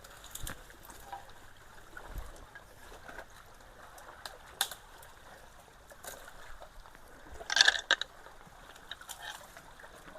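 Water trickling and sloshing around debris jammed in a culvert, with scattered short knocks and a louder burst of noise about seven and a half seconds in.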